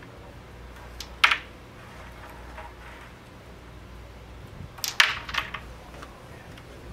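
Crokinole shots on a wooden board: a sharp wooden click about a second in, then a quick run of clacks a little after the middle as a flicked disc strikes other discs and pegs.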